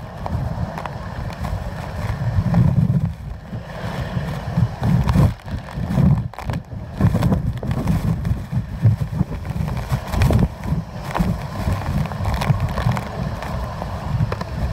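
Hurricane-force wind gusting and buffeting the microphone: a heavy, deep rumble that swells and drops from gust to gust.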